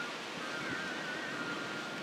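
Strong wind blowing, an even rushing noise, with a faint wavering high whistle running through it.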